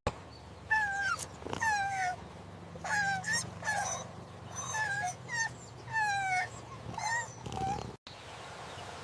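A young animal's high-pitched whimpering cries: about ten short, falling wails, one after another, over a faint low hum. They cut off suddenly near the end.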